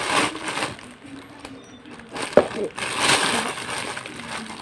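Clear plastic wrapping rustling and crinkling as it is handled, with one sharp tick about two and a half seconds in.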